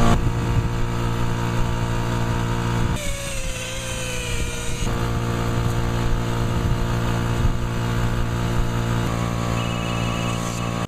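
Power sander running steadily on a plastic headlight lens, a constant motor hum with a low drone, sanding off the oxidised, cloudy surface with finer sandpaper.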